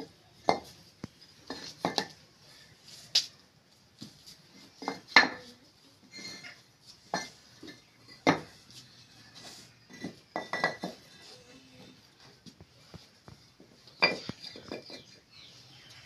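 Fired clay bricks knocked and clinked against one another as they are set down and stacked by hand: a string of sharp, irregular clacks, the loudest about five seconds in.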